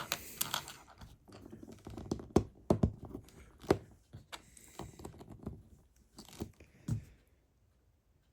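Small plastic LEGO pieces being handled and pressed together: irregular clicks, taps and scratchy rustling that stop about a second before the end.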